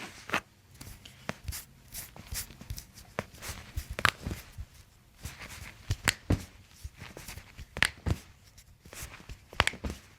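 Toe and ankle joints popping as a chiropractor manipulates them: a string of sharp cracks at irregular intervals, the loudest around four, six, eight and nearly ten seconds in, with soft rustling of hands on the foot between them.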